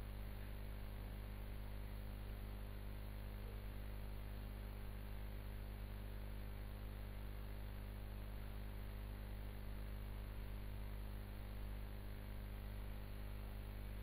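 Steady low electrical mains hum with a faint hiss: the background noise of the recording microphone, with no other sound on top.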